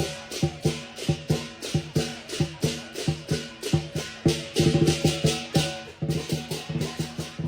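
Lion dance percussion: a large lion drum beaten in a quick, driving rhythm with clashing cymbals ringing over it, a few strokes a second and a denser run about halfway through.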